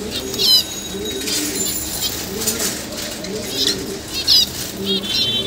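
A crowd of caged small parrots, lovebirds and budgerigars, calling with sharp, high chirps and chatter, over a low repeated cooing.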